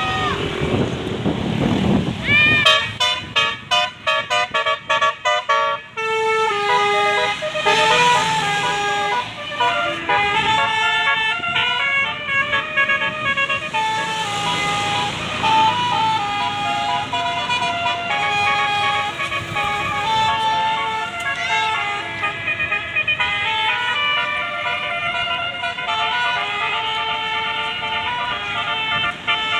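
Bus 'telolet' Basuri multi-tone horn playing a long tune: a few swooping toots, then a run of rapid staccato beeps, then a melody of held notes stepping up and down.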